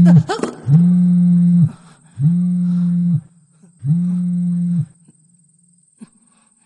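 Mobile phone vibrating on a hard floor: a low rattling buzz in pulses about a second long with short gaps, three full pulses after the tail of one already going, each dipping slightly in pitch as it stops. A short knock comes just after the start.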